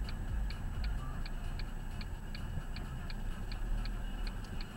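A car's indicator flasher ticking inside the cabin at about three to four ticks a second in an uneven tick-tock rhythm, over the low rumble of the car's idling engine.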